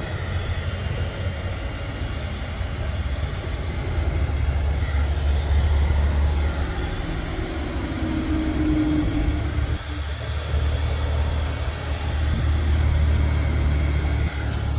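Big trucks going by on a nearby road: a heavy low rumble that swells and eases twice. Under it, a handheld electric heat gun runs with a steady whine.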